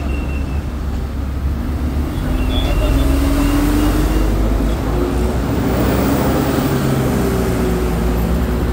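Road traffic close by: car engines running with a steady low rumble and road noise, one engine note rising slightly and the whole getting louder a couple of seconds in.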